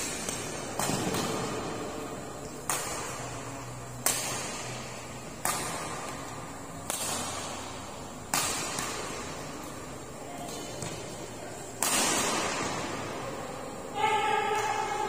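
Badminton rackets striking the shuttlecock in a rally, about one sharp smack every second and a half, each ringing on in the large hall. Near the end a voice calls out once, held for about two seconds.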